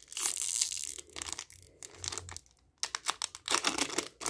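Foil booster-pack wrapper being torn open by hand, crinkling and crackling. A dense tearing rustle comes in the first second, then scattered crackles, a brief pause, and thicker crinkling near the end.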